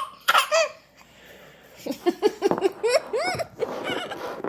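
High-pitched giggling laughter in short rising-and-falling bursts: one brief burst at the start, then a quick run of giggles from about two seconds in.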